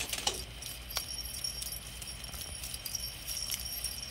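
A small bell on a cat toy jingling lightly as the toy is shaken, with a few sharp ticks.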